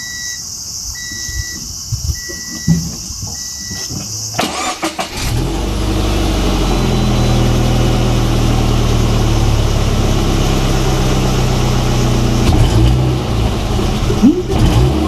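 A car's electronic chime beeps four times, then a Subaru BRZ's flat-four boxer engine is cranked, catches and settles into a steady fast idle just after start-up. During this idle-up a rattling resonance ("karakara") is the abnormal noise; the owner suspects a link to the exhaust after the muffler was taken off and refitted, or a pebble sitting on a heat shield.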